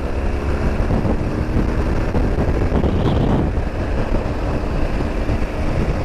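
BMW R1200GS boxer-twin motorcycle running steadily at road speed, its engine note half buried under heavy wind noise on the microphone.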